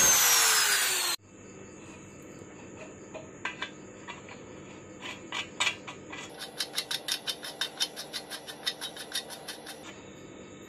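Angle grinder cutting sheet steel, its whine falling as it spins down, cut off abruptly about a second in. Then quiet metallic clicks and taps as a nut is worked on a bolt, with an even run of sharp clicks, about four a second, for a few seconds in the second half.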